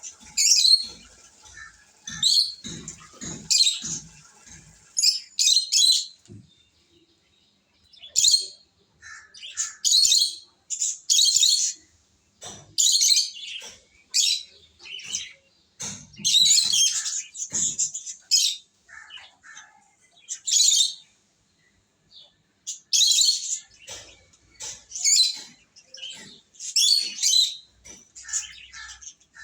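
Lovebirds chirping in many short, high-pitched bursts, one after another with brief pauses between. A few low knocks sound in the first few seconds.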